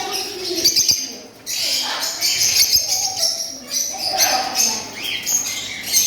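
Many caged birds chirping and calling at once in a dense, continuous chatter of short high chirps, with some lower calls mixed in.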